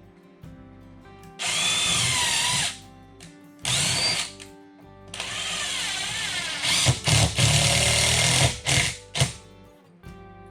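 Power drill driving screws into cement backer board. It whines in three bursts: two short ones, then a longer run of about three seconds where the motor speed rises and falls under load. Two quick trigger pulses come near the end.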